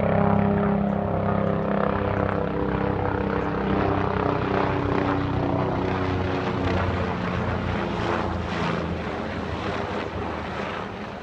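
Helicopter flying overhead with an odd droning hum: a stack of steady low tones over a rushing noise, slowly fading as it moves away.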